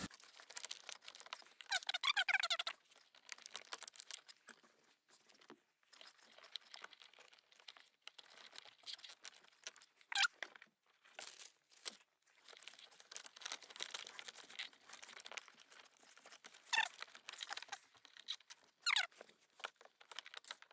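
Faint handling sounds of fitting a small plastic electronics module with cable ties: plastic clicks and rustling, and a few short ratcheting bursts, about two seconds in and near the end, as zip ties are pulled tight.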